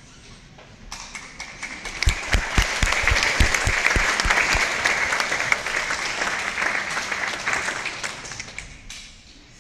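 Audience applauding, starting about a second in and fading out near the end, with a few low thumps early in the clapping.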